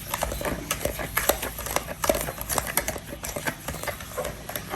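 A utensil stirring curd and sugar in a mixing bowl, with irregular clicks and scrapes against the bowl.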